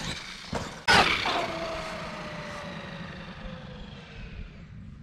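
Traxxas Maxx RC truck's electric motor and drivetrain: a sudden loud burst of throttle just before a second in, then a whine that falls steadily in pitch and fades over several seconds as the truck slows.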